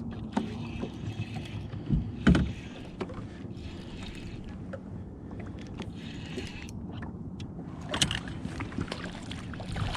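Small fishing boat on open water: a steady low rumble of wind and water, broken by a few sharp knocks, the loudest a little after two seconds in and at about eight seconds.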